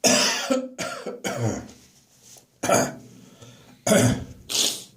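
A person coughing hard and clearing their throat in harsh fits. A loud burst comes right at the start with two more close behind it, then three shorter coughs follow in the second half.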